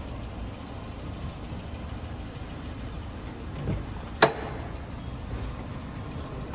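Steady low rumble of street noise, then a single sharp click a little over four seconds in as a car door is unlatched and opened.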